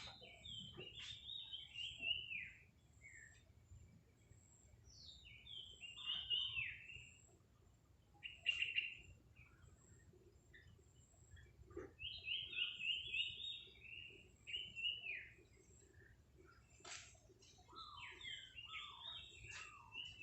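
A bird singing in short phrases of quick chirping notes that mostly slide downward. The phrases are separated by pauses of a few seconds.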